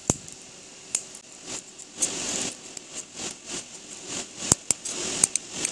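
Metal tweezers scraping and clicking along the wire legs of new electronic components, a bridge rectifier among them, to clean the leads before fitting. Small sharp clicks scattered through, with short scrapes, the longest about two seconds in.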